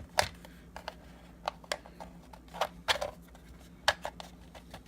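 Irregular light plastic clicks and taps, about ten in five seconds, as the rotating top turret of a snap-together plastic Millennium Falcon model kit is turned and handled.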